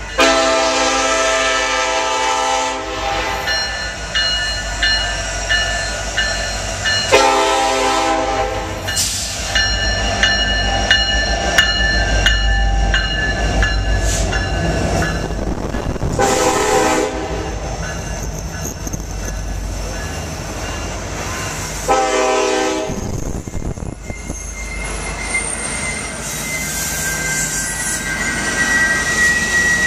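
Union Pacific diesel locomotive's air horn sounding four blasts for a grade crossing, the first two long and the last two shorter, while the crossing bell rings steadily. The locomotive passes close by with a deep engine rumble. The passenger cars follow, rolling past, with a thin, high wheel squeal near the end.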